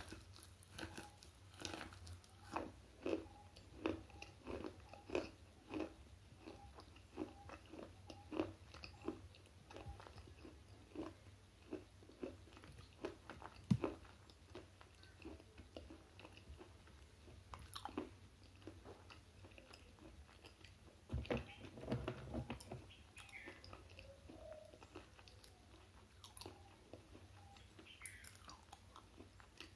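Slate pencil being bitten and chewed close to a lapel microphone: a steady run of crisp crunches about two a second, thinning out later into scattered crunches with one sharper crack about halfway through.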